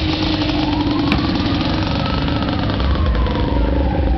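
Fire truck siren giving one slow wail, rising in pitch and then falling over about three seconds, over a steady engine running.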